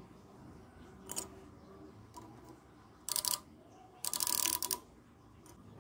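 Three short bursts of dry metallic rattling from an old clock's rusty steel movement held in a clamp. The first, about a second in, is brief. The last, about four seconds in, is the loudest and longest, at under a second.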